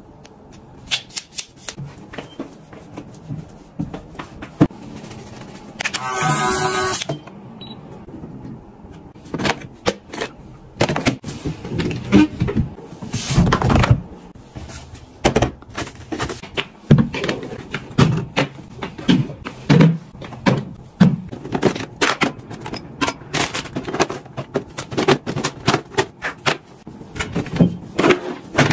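Clicks and knocks from objects being handled and set down, with a short pitched tone about six seconds in and a quicker run of taps near the end.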